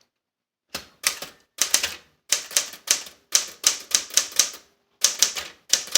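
Smith Corona Super Sterling manual portable typewriter being typed on: an uneven run of sharp key strikes, several a second in short bursts, starting just under a second in.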